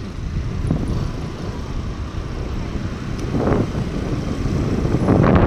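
Motor scooter riding along a city road: a low rumble of wind on the microphone mixed with engine and traffic noise, swelling louder about three and a half seconds in and again near the end.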